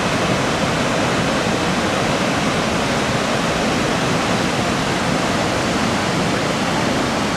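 Steady rush of a fast mountain river running white over rapids.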